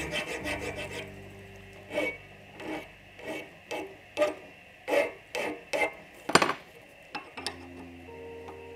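Flat hand file being pushed across the edge of a metal block held in a bench vise, taking a little off to fit the part. A quick run of short strokes comes first, then about a dozen separate strokes roughly every half second, the loudest a little past the middle. The strokes stop near the end.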